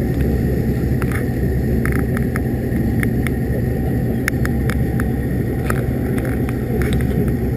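Sport-fishing boat's engine running steadily under way, a continuous low drone, with scattered light clicks and rattles over it.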